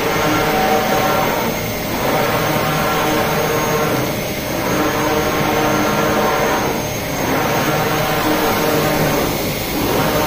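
Large-format flatbed printer running: a steady machine drone with many steady tones and the hum of its vacuum bed, dipping softly about every two and a half seconds.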